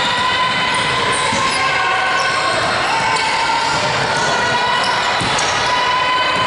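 Basketball dribbling and bouncing on a hardwood gym court during a game, with many short high squeaks and voices around it.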